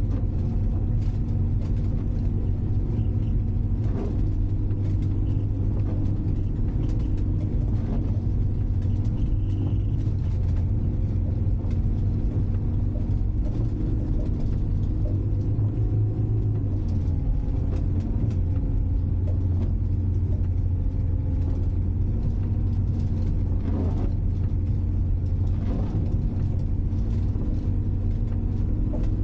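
Citroën C15 D diesel van's engine running under way, heard from inside the cab, with tyre and road noise from studded tyres on snow and scattered short knocks. The engine note shifts about seventeen seconds in.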